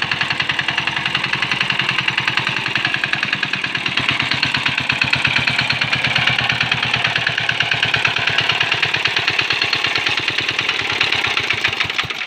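The small diesel engine of a hand tractor running steadily with a fast, even chugging beat.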